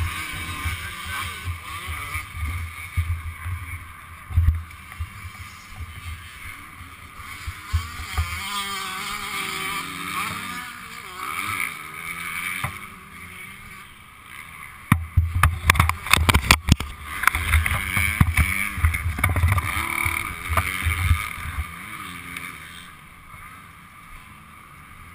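Muffled low rumbling and knocking picked up through a helmet camera's case, with indistinct voices; a quick run of sharp knocks a little past the middle.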